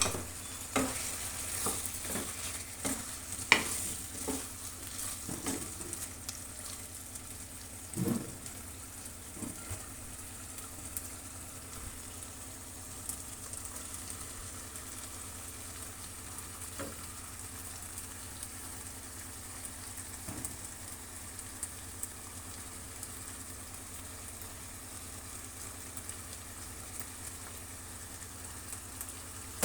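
Food frying in hot oil in a pan, a steady sizzle. A cooking utensil knocks and stirs against the pan a dozen or so times, mostly in the first ten seconds, with the loudest knocks about three and a half and eight seconds in.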